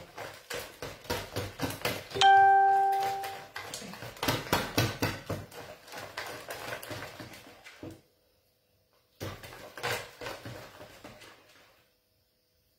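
Whisk beating a thick yeast batter in a plastic bowl: a quick run of strokes, slapping through the batter and tapping the bowl. About two seconds in, a short, clear ringing tone is the loudest sound. The strokes break off twice near the end.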